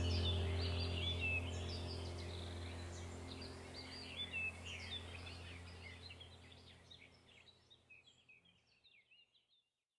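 Small birds chirping and singing over a steady low hum, both fading out gradually to silence about nine and a half seconds in.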